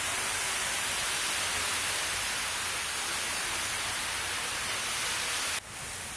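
Steady, even hiss of water on a flooded street, with cars driving through the standing water; near the end it drops abruptly to a quieter hiss.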